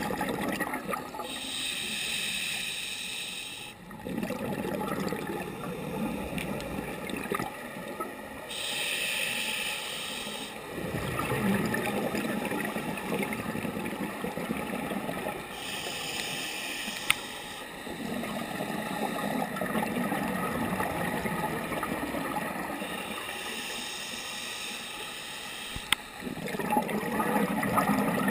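Scuba diver breathing through a regulator underwater: a hissing inhale about every seven seconds, each followed by a long bubbling exhale, four breaths in all. Two sharp clicks stand out, one past the middle and one near the end.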